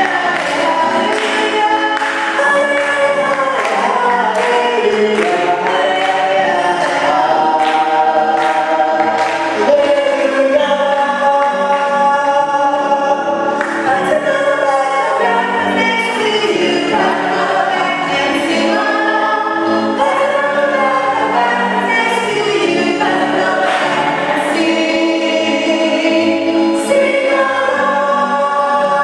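A church choir singing a gospel hymn, several voices holding long notes together.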